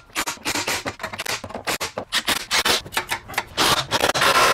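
A ratchet tightening the exhaust fasteners under the car: uneven bursts of rapid clicking and metal scraping, with one longer run near the end.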